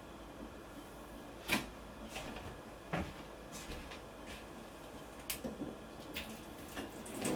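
Light clicks and knocks of household things being handled, a handful of separate taps spread over several seconds, the sharpest about one and a half seconds in.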